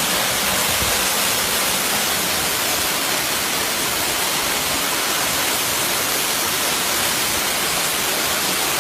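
Waterfall: falling water rushing steadily as an unbroken, even hiss.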